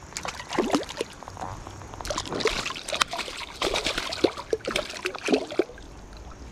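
A hooked rainbow trout thrashing at the surface of shallow creek water as a hand reaches in to grab it: a run of irregular splashes and gurgles that stops about a second before the end.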